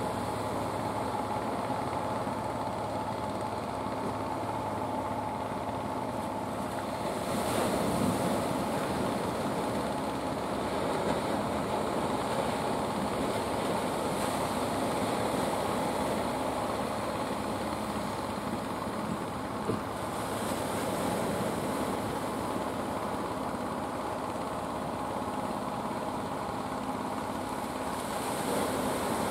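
Fishing-boat engines running with a steady hum over the wash of surf on rocks. The waves swell about seven seconds in, again around twenty seconds, and near the end.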